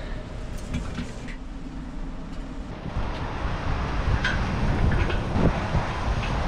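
Wind buffeting the camera microphone, a low rumble that gets stronger about halfway through, with a few light clicks and knocks of hands and gear on the crane's steel.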